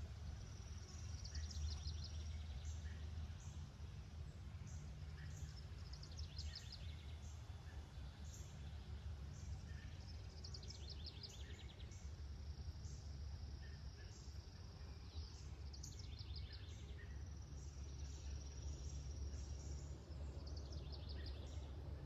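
A songbird singing the same short phrase over and over, about every four to five seconds: a held high whistle, then a quick run of falling notes. Faint high chips come between the phrases, over a steady low rumble.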